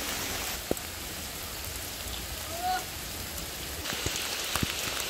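Heavy rain falling steadily on rock and ground, with scattered drops tapping close by. Its level drops about half a second in and rises again near four seconds.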